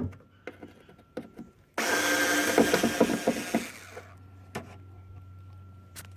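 Work on an LPG fuel line being removed from a car: scattered clicks and knocks, then a loud rasping, rattling noise that starts abruptly about two seconds in and lasts about two seconds, over a steady low hum.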